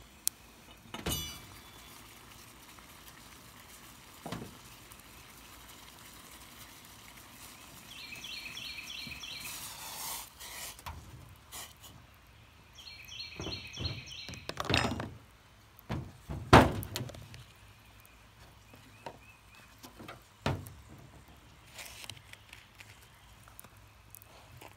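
Cookware being handled: a metal pot and its lid lifted off a wood-burning hobo stove and set down on the table, heard as a scattering of separate sharp knocks and clinks, the loudest about two-thirds through.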